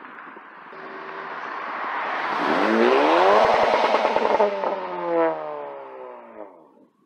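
Straight-piped Honda Civic, resonator and muffler deleted, accelerating hard to about 7,000 rpm as it drives past: a raspy exhaust note that swells and climbs in pitch to a loud peak, then drops in pitch and fades as the car pulls away.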